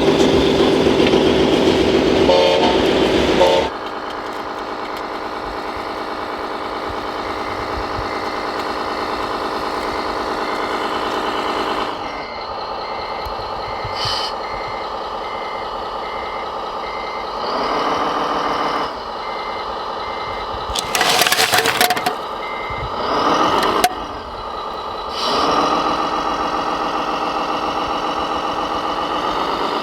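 Model truck engine sound running steadily, as from an RC truck, with a reversing beeper sounding regularly and the engine revving up briefly several times in the second half. A louder rushing noise fills the first few seconds.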